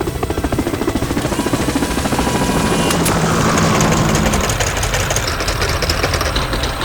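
Sound effect of a heavy construction machine running, a rapid, steady mechanical chatter that swells toward the middle and eases off near the end.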